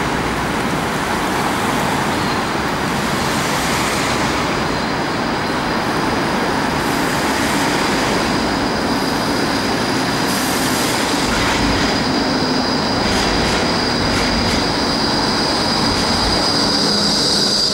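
Bombardier E Class tram rolling into a stop and slowing, its running noise carrying a steady high-pitched squeal that grows louder near the end as the tram comes close.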